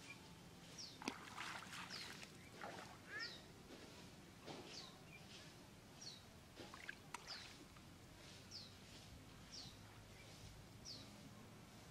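Faint wet squelching and splashing of hands working through mud and silty water. Over it, a bird repeats a short, high falling call about once a second.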